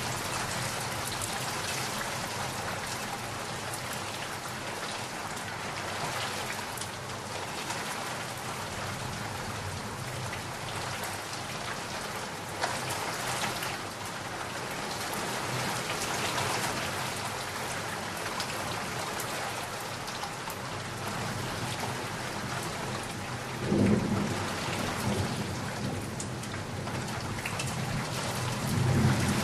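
Steady heavy rain with rolling thunder. A low thunder rumble builds about three-quarters of the way through, and another begins near the end.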